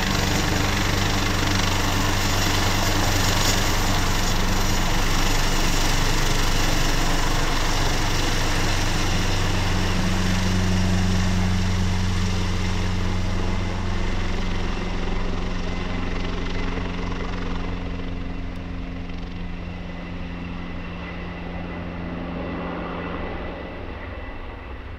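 Leonardo AW189 twin-turboshaft helicopter climbing away after take-off: a steady low rotor drone over engine noise. It gradually fades as the helicopter draws off, the higher sound dropping away over the last ten seconds or so.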